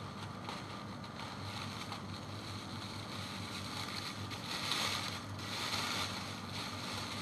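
Plastic oven roasting bag crinkling and rustling as it is untied and pulled open, loudest a little past halfway through, over a steady low hum.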